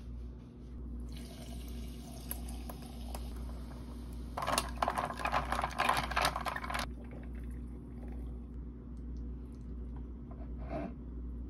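A glass of fizzy pink lemonade, its bubbles crackling and hissing, louder for about two seconds in the middle before it cuts off suddenly.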